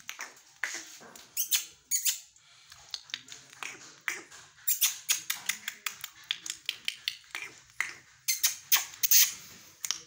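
Ringneck parakeet giving a rapid, irregular series of high squeaks, chirps and clicks, with the loudest clusters near the middle and again about nine seconds in.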